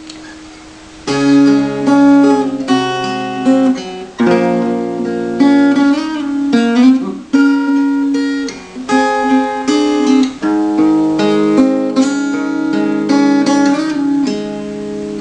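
Acoustic guitar played with the fingers: a passage of plucked chords and melody notes that starts about a second in, each note ringing on into the next.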